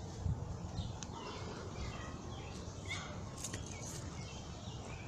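A few short bird chirps over a low rumble of wind and phone-handling noise, with scattered light clicks.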